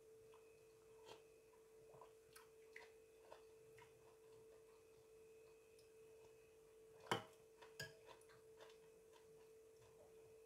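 Near silence with a faint steady hum, broken by small scattered clicks and clinks of a metal spoon against a glass bowl as soup is eaten. The sharpest clink comes about seven seconds in.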